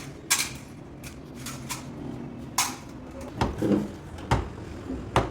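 A series of sharp knocks and clicks of hard parts being handled, about six in all and irregularly spaced, with a steady low hum behind them.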